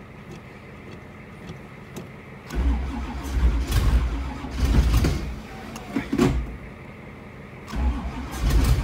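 Starter cranking the 1985 Camaro Z28's cold 383 stroker V8 in two long spells, the first starting about two and a half seconds in and the second near the end. The engine does not catch: a cold no-start on a weak jump, with the starter itself struggling.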